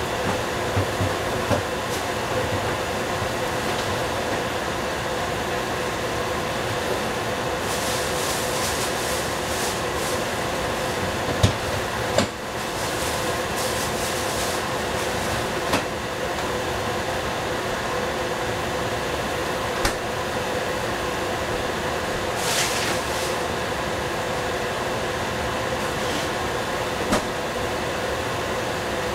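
Food cooking in a pan on the stove under a steady mechanical hum. A few sharp clinks of a utensil against the pan are heard, and three short spells of higher, hissing sizzle.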